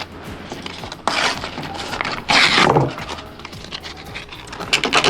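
Laser-cut plywood parts of a wooden combination lock being handled and pressed together: a few short scraping rasps, the loudest about two and a half seconds in, over quiet background music.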